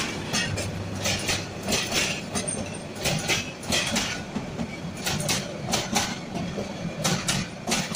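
Bangladesh Railway intercity passenger coaches passing close by, their wheels clacking over the rail joints in a run of sharp clacks, often in quick pairs, over a steady rumble.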